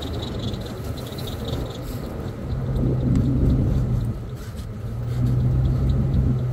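Jeep Cherokee engine running under load as the Jeep crawls up a dirt trail in four-wheel drive, the engine note swelling louder twice, at about two and a half seconds and again at about five seconds, as throttle is added.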